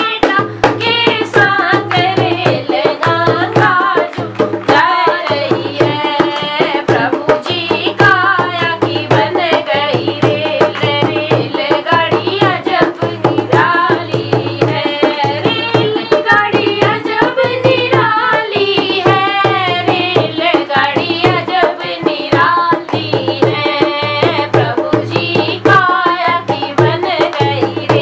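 Dholak, a rope-tensioned two-headed barrel drum, played with both hands in a fast, steady folk rhythm, its bass head giving a recurring low boom, with a girl singing a Hindi devotional bhajan over it.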